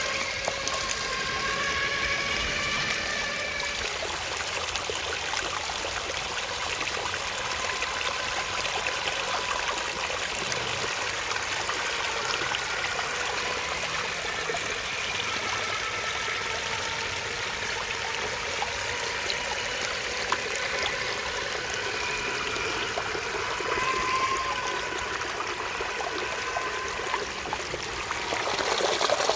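Running water of a small stream trickling steadily. An RC truck's electric motor and gears whine over it in the first few seconds and again about three-quarters of the way through.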